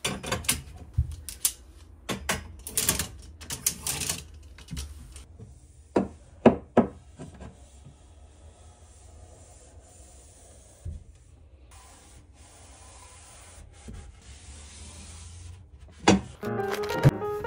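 Wet wipe rubbing along the inside walls and clothes rail of a wardrobe: a quick run of short scrubbing strokes and knocks in the first few seconds, then a quieter steady wiping hiss. Piano music comes in near the end.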